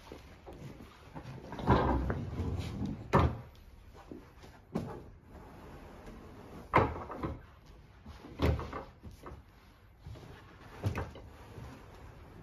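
A pull-out sofa bed being opened by hand: the frame slides out from under the seat and the fold-out sections are swung open, giving a series of about six knocks and thumps a second or two apart, with rustling and scraping between them.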